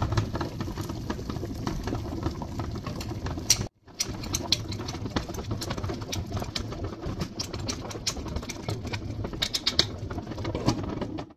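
Hot water bath bubbling in a steel pot, a steady low rumble with many small clicks, dropping out for a moment about four seconds in. A metal spoon stirring milk clinks against the glass jars, most clearly near the end.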